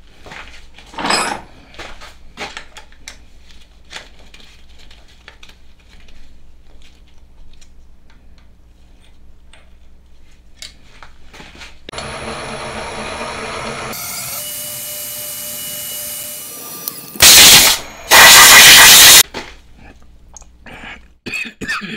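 Scattered light clicks and rubbing as a cast aluminium cylinder block is handled in a milling-machine vise. From about twelve seconds a steady rushing noise runs for about five seconds, followed by two very loud bursts of rushing noise, the second about a second long.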